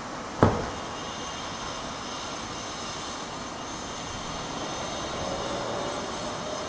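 NIR class 201 diesel locomotive's EMD 12-710 two-stroke engine running as it approaches light engine: a steady drone with high whining tones that grows a little louder about halfway through. A single sharp knock about half a second in is the loudest sound.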